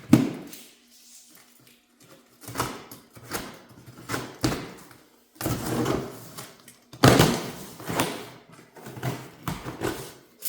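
Cardboard shipping boxes and their contents being handled and opened: a sharp knock right at the start, then repeated rustling and scraping, each burst lasting about a second.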